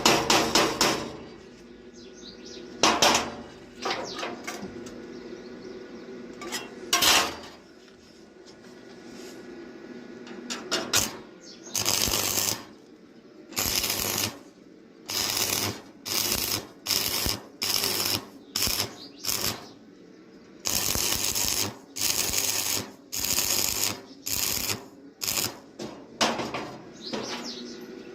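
A few sharp metal clanks, then about a dozen short bursts of electric arc welding, each lasting about a second and starting and stopping abruptly, as tack welds are laid on iron.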